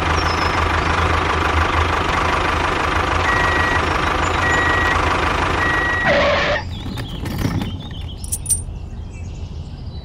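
Tractor engine running steadily, with three short high reversing beeps about a second apart as it backs up to its trailer. The engine stops about six and a half seconds in, leaving only a few small clicks.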